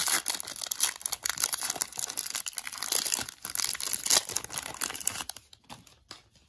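Foil-lined Magic: The Gathering booster pack wrapper being torn open and crinkled by hand, a dense crackling that dies away about five seconds in.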